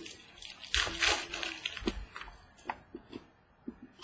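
Trading cards being handled on a tabletop: a brief scraping rustle about a second in as a card slides against the others, then scattered light clicks and taps as cards are set down and picked up.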